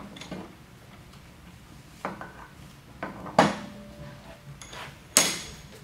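Metal clanks from a bench vise being worked while a Crown PTH50 pallet jack hydraulic unit is turned over in its jaws: three sharp knocks about two, three and a half and five seconds in, the last two loudest, the middle one leaving a brief faint ring.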